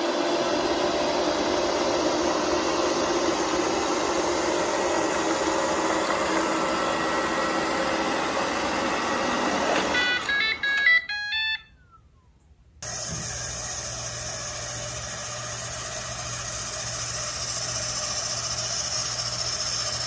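Shark robot vacuum running as it drives onto its charging dock, then a short beeping melody about ten seconds in, after which it stops. After a brief silence, a quieter steady hiss with a low hum takes over.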